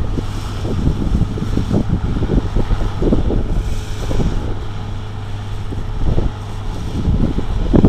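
Steady drone of a combine harvester at work, its engine and threshing gear running, with wind buffeting the microphone in irregular low thumps.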